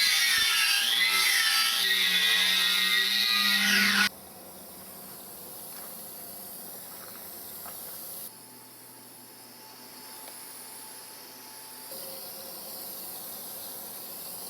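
A high-speed power tool whines loudly, its pitch wavering slightly, then stops abruptly about four seconds in. A quieter steady hiss follows.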